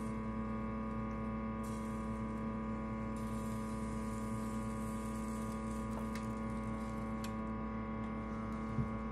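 Steady hum from a kitchen appliance, a drone of several fixed tones that holds level throughout, with a few faint clicks about six and seven seconds in.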